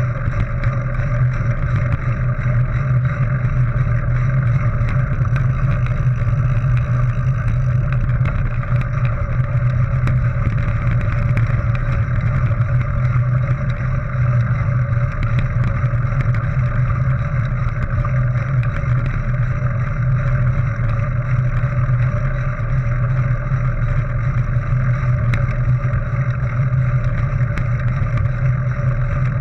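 Steady rumble of wind and mountain-bike tyres rolling over a dirt and gravel track, picked up by a GoPro HERO 3 carried on the riding cyclist, with faint ticks from gravel and the bike.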